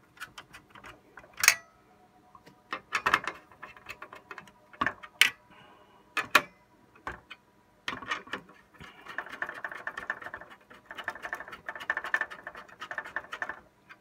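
Scattered clicks and knocks of plastic and metal computer parts being handled and fitted, then about four seconds of rapid fine rattling near the end.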